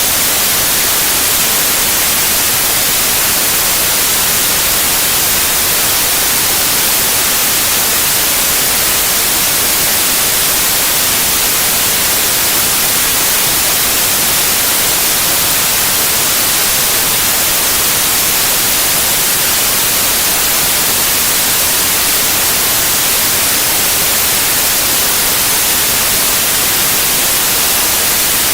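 Steady, loud white noise: an even hiss with no changes, strongest in the treble.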